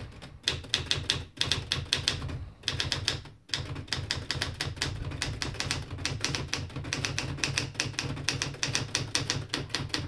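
Late-1960s Smith Corona Standard manual typewriter being typed on fast, its typebars clacking against the platen several times a second, with a few brief breaks in the first few seconds. The machine is freshly serviced and working.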